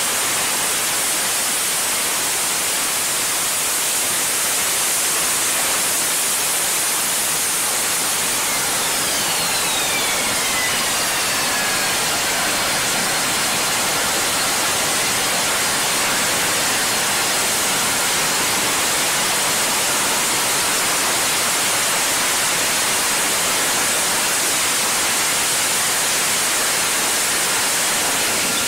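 Harrier jump jet's Pegasus turbofan roaring steadily as the jet hovers and lands vertically. A high turbine whine falls in pitch about ten seconds in.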